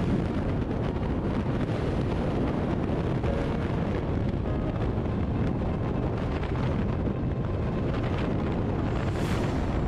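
Steady rush of freefall wind buffeting the skydiver's camera microphone, a dense noise heaviest in the low range.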